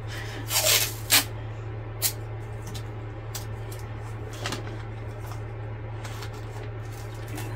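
Handling noise: a few short rustles and taps, the loudest about half a second to a second in, over a steady low hum.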